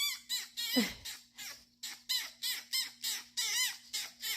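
A bird giving a quick run of short, squawky calls, about three a second, each rising and falling in pitch.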